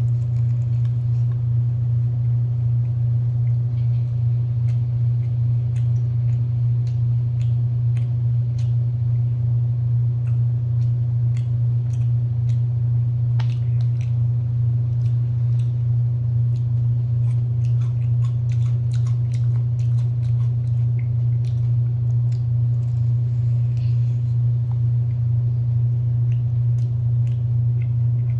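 A loud, steady low hum, with scattered crisp crunches and clicks of someone biting and chewing crispy fried chicken.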